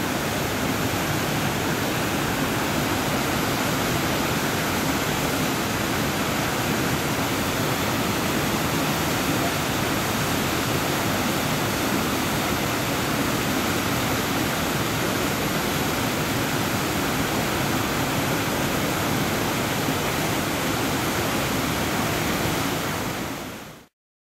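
Waterfall and rapids rushing with a steady, even roar; the sound fades out quickly near the end.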